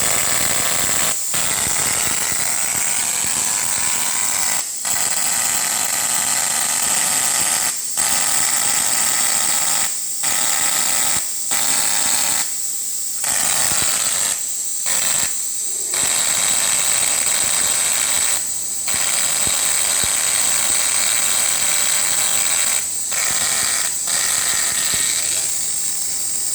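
Jasic Cut 120 plasma cutter's torch running: a loud, steady hiss with a high whine, broken by about ten short, irregular breaks where it stops and starts again.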